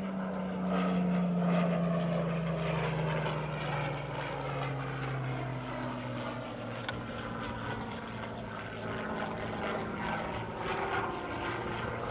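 A Supermarine Spitfire's Rolls-Royce V12 piston engine running as the plane flies its display. The engine note falls in pitch over the first few seconds as it passes, then holds steady.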